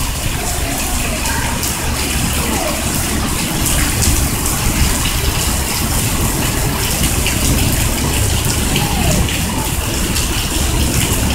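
Rain pouring down steadily: an even, unbroken rush of water.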